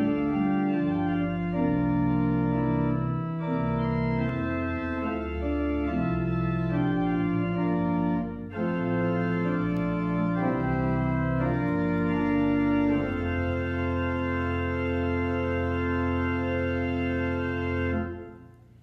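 Church organ playing a slow prelude in sustained chords, with a brief break about eight seconds in, closing on a long held final chord that stops shortly before the end.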